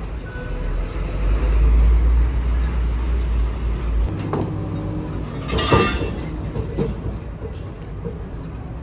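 Truck engine running with a deep rumble that rises and holds for about four seconds, then drops back, as it drives a truck-mounted crane hoisting a truck front axle on a chain. A brief sharp noise comes about two-thirds of the way in.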